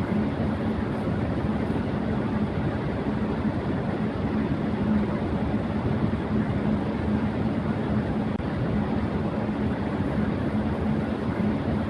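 Electric fan running at high speed: a steady rush of air with a low, even hum.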